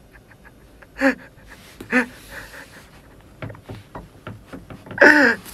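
A young man laughing behind his hand: short breathy bursts of laughter about one and two seconds in, and a louder burst of laughter near the end, with faint clicks between.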